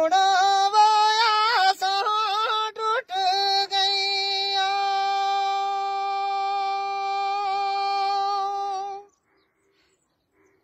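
A man singing a Gojri baith, a Gujjar folk song, in a high voice with no instruments. The first three seconds are an ornamented, wavering phrase. He then holds one long steady note until about nine seconds in, and the voice stops.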